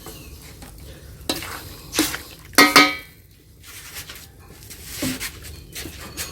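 A utensil stirring and scraping food in a cooking pot, with a few clanks against the pot; the loudest, a ringing clank, comes about two and a half seconds in.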